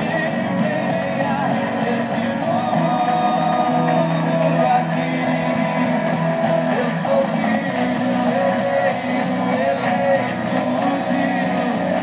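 Music with singing playing from a Kenwood R-1000 communications receiver tuned to an AM broadcast station, steady throughout, with the treble cut off sharply as on AM radio.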